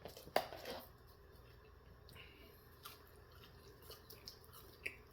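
A person chewing sauced chicken nuggets close to the microphone: faint wet mouth smacks and clicks, the sharpest one about half a second in.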